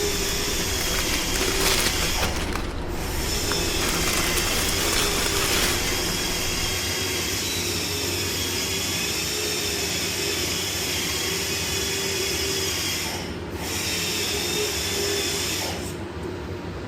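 Pneumatic shop tool running with a steady hiss and a wavering whine, its air cut off briefly twice and then again near the end.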